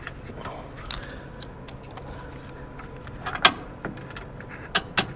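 A few sharp metal clinks and clicks of a small bolt and hand tool being handled while the bolt is fitted into its mount, the loudest about three and a half seconds in and two more in quick succession near the end.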